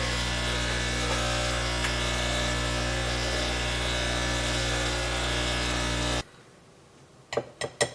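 Espresso machine running its clean cycle with a steady hum, cutting off suddenly about six seconds in; a few short clicks follow near the end.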